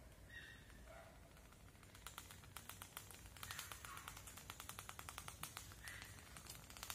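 Faint, rapid run of light metallic clicks, roughly ten a second, starting about two seconds in: a small hand tool working along welded wire mesh.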